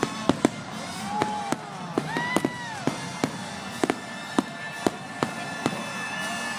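Fireworks going off: a rapid, irregular run of sharp bangs, about two a second, with several pitched whistles that rise and fall between them.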